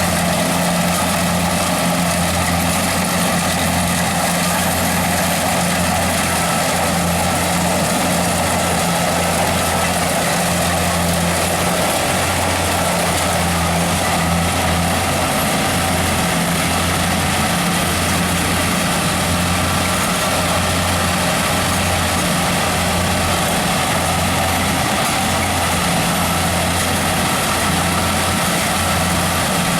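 Corn harvester with built-in sheller running steadily: an even, unchanging engine hum under a broad rush of machinery noise.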